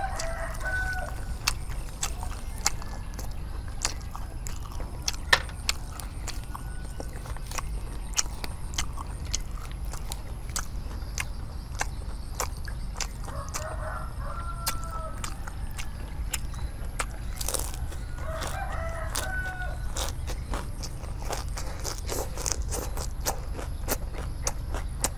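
Crisp chewing and crunching of a crispy rice pancake (bánh xèo) wrapped in fresh leaves, heard as many sharp clicks. A rooster crows three times in the background: at the start, a little past halfway, and again about three quarters of the way through.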